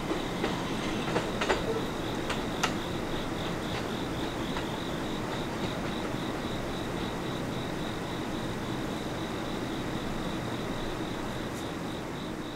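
R211A subway train running away along the track: a steady rumble with a few sharp wheel clicks over the rail in the first three seconds, slowly fading toward the end.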